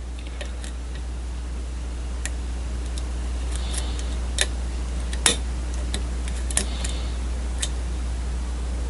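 Sharp, irregular clicks of a lock pick working the pins of a challenge lock against tension, with faint scraping from the pick, over a steady low hum.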